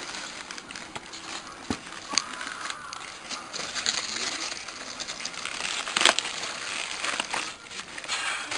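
A hand rummaging through polystyrene foam packing peanuts in a cardboard box: continuous rustling with many small clicks, and a sharper click about six seconds in.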